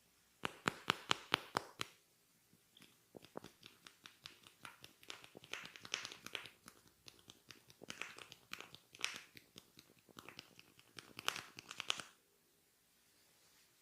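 Hands working a head massage close to the microphone: a quick run of about eight sharp taps, then several seconds of irregular crackling and scratching from hair being rubbed and tugged, the barber's hair-cracking technique, which stops abruptly near the end.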